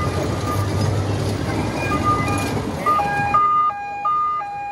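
Electronic two-tone siren sound effect from a children's ride of toy vehicles, switching between a high and a low note about three times a second. Under it runs the rumble and hum of the running ride, which drops away about three and a half seconds in.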